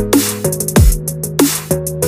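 Background electronic dance music with a heavy beat: deep kick drums that drop in pitch, hi-hat ticks and a sustained synth bass.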